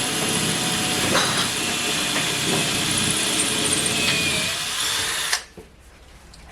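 Electric drill boring a hole into wall tile, running steadily and then stopping suddenly about five seconds in, once the hole is done.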